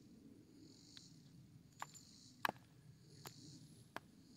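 About five faint, sharp metallic clicks from handling a Smith & Wesson M1917 revolver, the loudest about halfway through, over a steady pulsing chorus of insects.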